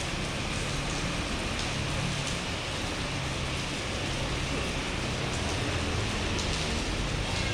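Steady rain falling, an even hiss with a few faint drop ticks on top.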